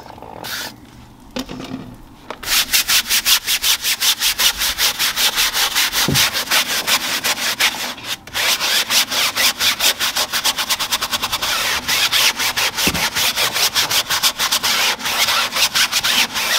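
A Detail Factory tyre brush scrubbing a car tyre's sidewall worked up with foaming tyre cleaner: quick, even back-and-forth bristle strokes on the rubber, about four a second, with a brief break about halfway. A short squirt from the spray bottle comes just before the scrubbing starts.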